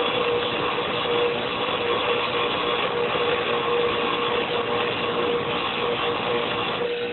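A grinder running with a steady hum while the steel jaws of a pair of side cutters are ground against the wheel, being gently rocked back and forth to cut flush; the grinding noise eases off near the end.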